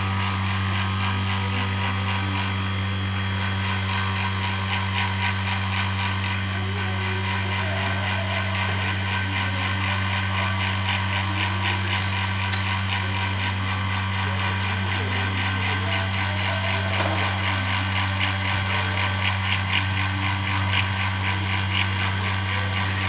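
Electric vacuum pump running steadily, evacuating a vacuum drying oven's chamber: a constant low hum with a fast, even rattling pulse over it.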